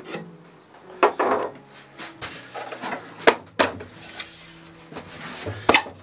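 Wooden panels of an antique writing bureau being handled and its wooden pigeonhole insert slid out: a handful of sharp wooden knocks and clacks, the loudest about three seconds in, with wood scraping against wood between them.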